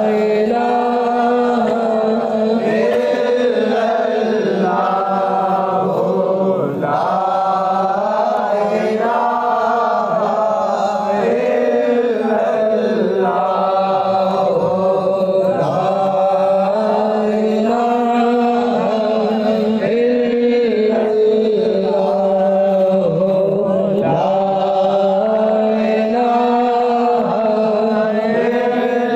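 Naat, an Islamic devotional chant: layered voices sing a slow melody over a steady low hummed drone, with no beat.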